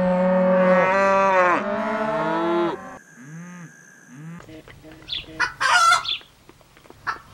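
A cow mooing in one long, loud call that ends about two and a half seconds in, followed by a few fainter calls. From about four and a half seconds in, chickens clucking in short, quick bursts.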